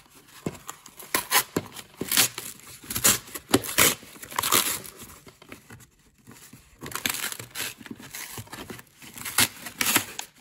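A cardboard mailer being torn open by hand: irregular ripping and crinkling of kraft paper and corrugated cardboard wrap, with a brief pause a little past halfway.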